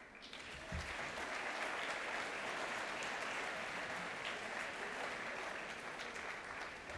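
Audience applauding: many people clapping, starting within the first second, holding steady, and thinning out near the end.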